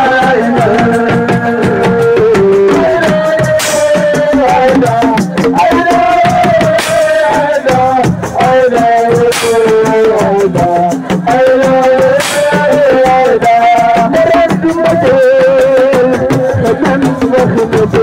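Senegalese assiko band music played live: a fast, dense drum rhythm under a wavering sung melody.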